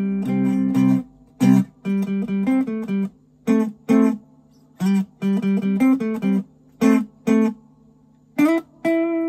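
Fender Telecaster Thinline electric guitar played clean, picking a single-note melody in short phrases with pauses between them, ending on a longer held note.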